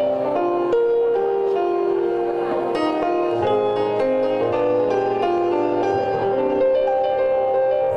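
Live jazz from a voice, piano and electric bass trio: piano notes with a singer's long held notes above them and a low bass line.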